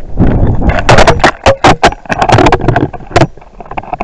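Wind rushing and buffeting over the microphone of a keychain camera strapped to a falling model rocket, with many sharp rattling knocks in between. The rocket's Estes C6-5 motor has failed by blowing through.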